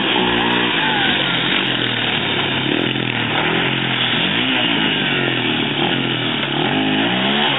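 An engine running steadily, its pitch rising and falling several times as it is revved.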